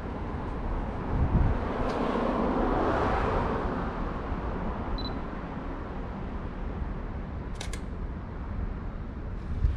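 Canon EOS M50's focus-confirmation beep, a short high note, then about two and a half seconds later the shutter's double click as a photo is taken. Beneath them a steady rumble of background noise swells for a few seconds near the start.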